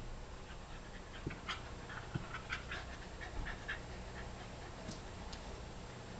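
A Shetland sheepdog panting in short, uneven breaths during rough play.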